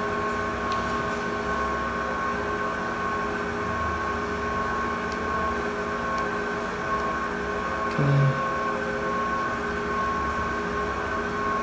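Steady machine hum with several held tones and a low rumble underneath, and a short low sound about eight seconds in.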